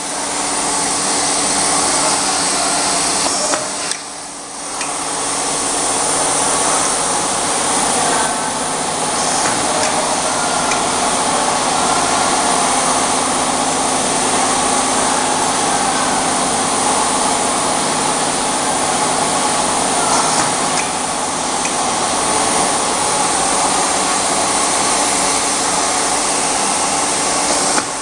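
Steady mechanical running noise, a continuous hiss with a low hum, from machinery in a workshop where a semi-automatic labeling machine is at work. It dips briefly about four seconds in.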